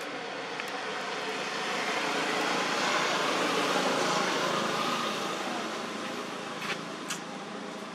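A motor vehicle passing on the nearby road, its noise swelling to a peak about halfway through and then fading away. Two short clicks near the end.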